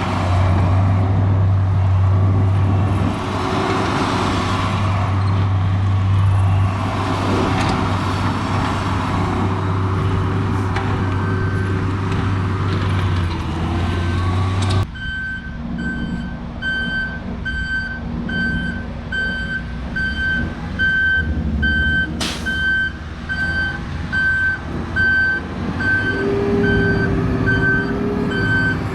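Diesel engine of heavy earthmoving equipment running hard. About halfway through it cuts abruptly to a backup alarm beeping steadily, roughly once or twice a second, over an idling engine.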